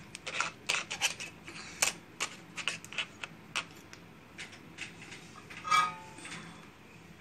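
Light clicks and ticks from handling a small plastic spool of thin enamelled copper jumper wire while unreeling a strand from it, with a louder scrape about six seconds in.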